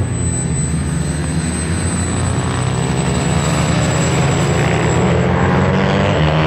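Twin turbine engines of a large RC model jet running at high power as it rolls down the runway on its takeoff run. A steady high-pitched turbine whine sits over a loud, even jet rush.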